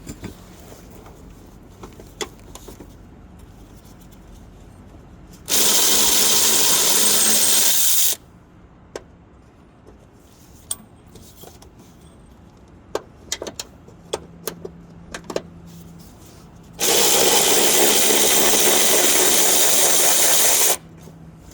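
Impact wrench run in two long bursts, the second a little longer, loosening the suspension bolts, with small clicks and clanks of tools and hardware between.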